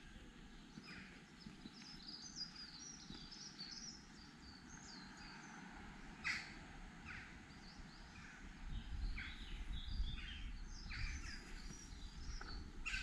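Wild birds singing and calling: rapid high chirps and trills from small songbirds, with a few louder, sharper calls, the strongest about halfway through. A low rumble joins about two-thirds of the way in.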